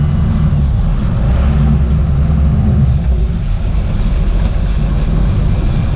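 Sport-fishing boat underway: a steady low engine drone with the rush of water from the wake.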